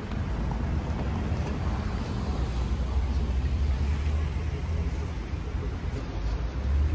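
City road traffic: vehicles passing in a steady low rumble.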